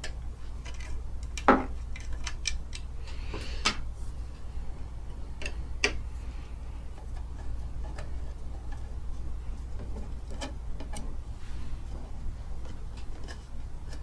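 Scattered small metallic clicks and taps of a screwdriver working the screws of a sewing machine's motor cover, the sharpest about one and a half seconds in.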